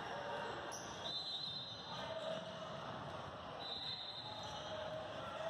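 Youth basketball game in a gym: a steady hum of crowd noise with a basketball bouncing, and high squeaks twice, about a second in and again near the four-second mark.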